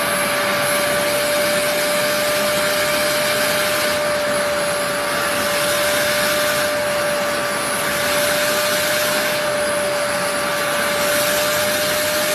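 A loud, steady machine whirr with a constant humming tone throughout, cutting off abruptly at the end.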